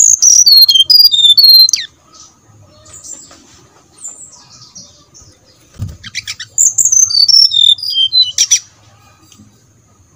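Brown-chested jungle flycatcher singing: two loud phrases of clear whistled notes that step down in pitch, one at the start and one about six and a half seconds in, with softer chirps between them. A short low thump comes just before the second phrase.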